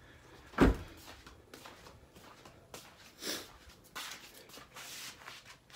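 Phone-handling noise and faint shuffling footsteps as a handheld camera is carried along. There is a sharp knock about half a second in and a short breathy hiss near the middle.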